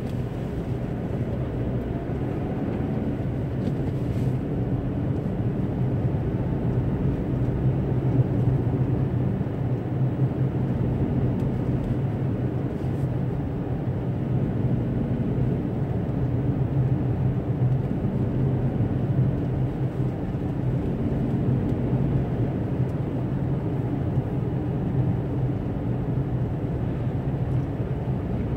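Car running on a snow-covered road, heard from inside the cabin: a steady low drone of engine and tyre noise.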